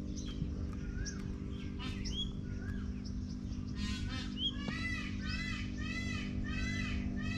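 Birds calling: scattered short rising chirps, then from about five seconds in a rapid run of harsh, repeated calls at about three a second.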